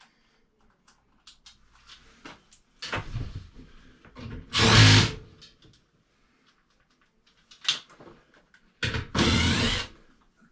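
Power drill driving screws into an air handler, in short runs: a brief one about three seconds in, the loudest a second or so later, and another near the end, with small clicks and knocks of parts being handled between.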